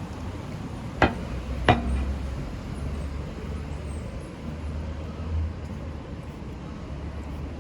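A car passing on the road: a low rumble that builds for a few seconds and then eases off. About a second in there are two sharp clicks, roughly half a second apart.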